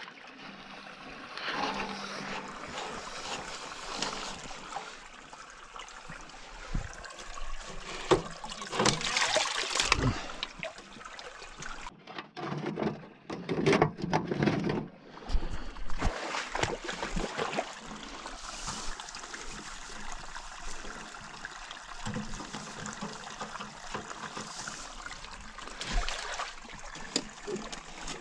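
Water trickling and splashing, with irregular knocks and rattles of gear being handled. The sound breaks off abruptly a few times.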